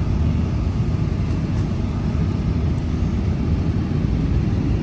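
Steady low rumble of a pickup truck driving along a road, engine and tyre noise heard from inside the cab.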